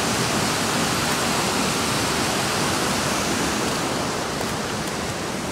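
Steady rush of a large river and waterfall.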